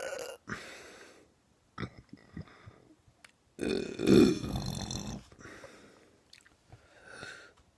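A person burping: one long, loud burp about four seconds in, with a few shorter, quieter sounds before and after it.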